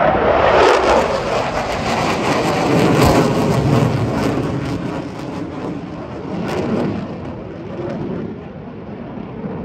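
Fighter jet passing low overhead: a loud roar whose pitch drops in the first second as it goes by, then a deep rumble that slowly fades.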